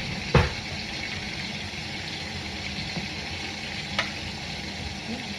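Chicken legs searing in hot oil in a Dutch oven, a steady sizzle, with a sharp knock against the pot just after the start and a lighter click about four seconds in.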